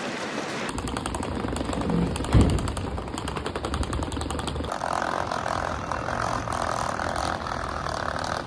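Rolling suitcase wheels clattering fast and continuously over a paving-stone pavement as it is pulled along, starting about a second in, with one loud thump a little over two seconds in. From about halfway a steadier street hum joins the clatter.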